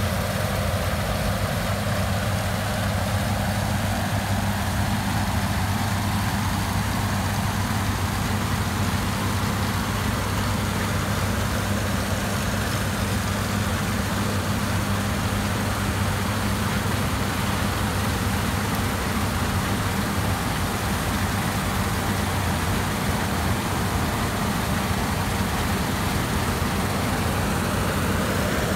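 Combine harvester running steadily while cutting wheat: an even engine hum with two held low tones that stays level throughout.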